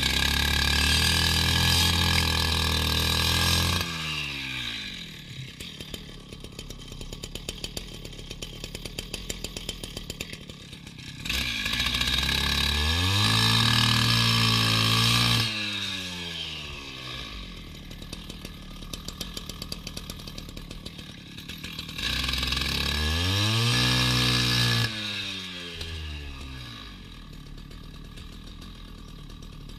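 Two-stroke petrol disc cutter cutting a concrete kerb: it is opened to full throttle three times for a few seconds each, and each time the revs fall away to a steady idle. It idles through the end.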